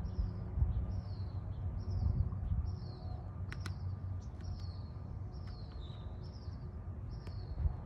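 A bird calling over and over, one short high note roughly once a second, over a low rumble.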